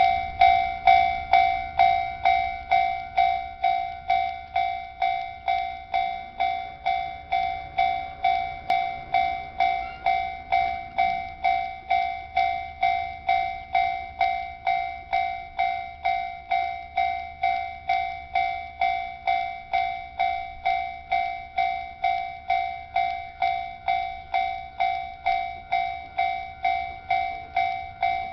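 Japanese railway level crossing warning bell ringing its steady clang-clang, just under two strokes a second, each stroke ringing and fading. It starts suddenly at the beginning, the crossing's warning that a train is approaching.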